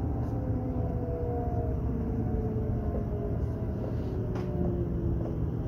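Electric train heard from inside the passenger cabin: a steady rumble of wheels on rail with the traction motors' whine slowly falling in pitch as the train loses speed. A light click about four seconds in.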